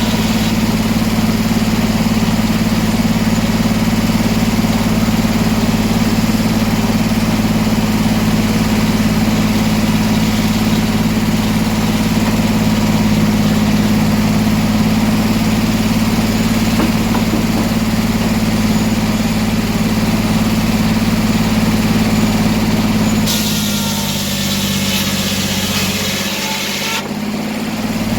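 Sawmill engine running steadily. Near the end the engine note drops and a hiss comes in for about four seconds, then the steady running returns.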